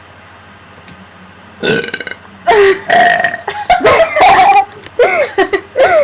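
Loud human burps: a short one about a second and a half in, then a run of long, drawn-out burps whose pitch rises and falls.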